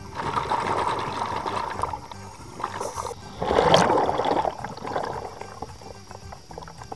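Scuba diver's exhaled bubbles rushing from the regulator underwater, two breaths with the second one louder.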